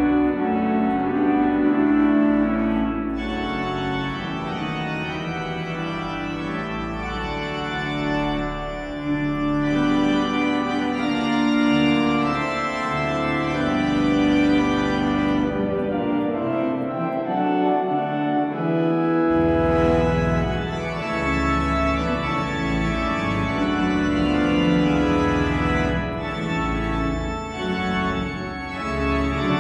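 Hauptwerk virtual pipe organ, sampled from English cathedral pipe organs, playing sustained full chords in a hymn and fanfare piece. The deep pedal bass drops out for a few seconds past the middle, then comes back in.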